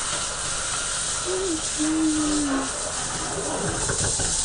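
Kitchen sink faucet running, a steady hiss of water pouring into the sink.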